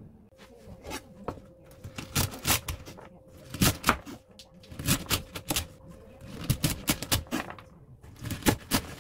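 Kitchen knife chopping a bundle of garlic scapes into 4 cm lengths on a wooden cutting board: an uneven run of sharp chops, each cut ending in a knock on the board.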